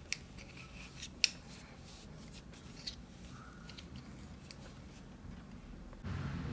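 Metal 10 mm circular knitting needles clicking against each other while stitches are knitted, with two sharp clicks in the first second or so and lighter scattered ticks after.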